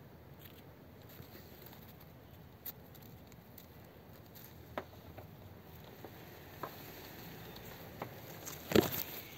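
Faint background hiss with a few scattered soft clicks and taps and a louder rustling click near the end: handling noise of a phone being moved by hand through the leaves of a flowering bush.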